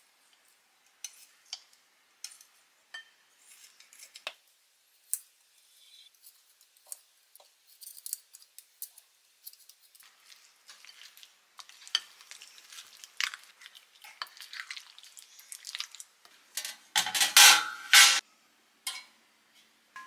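Kitchen scissors snipping raw pork belly into a glass bowl, with scattered small clicks, then a wooden spoon mixing the meat into a thick gochujang marinade. About three seconds from the end comes a louder clatter of kitchen utensils.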